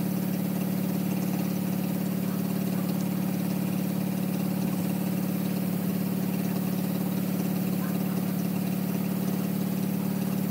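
Garden tractor engine running steadily at a constant speed, with no change in pitch.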